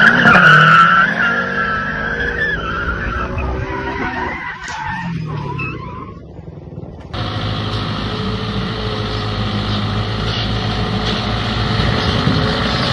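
Tyres squealing and a car engine revving hard as a saloon car slides through a bend; the squeal and engine fall away over the next few seconds. About seven seconds in, a cut to a heavy logging truck's engine running steadily.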